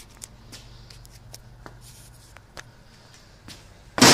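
A few light clicks and taps over a steady low hum, then a sharp, loud knock right at the end.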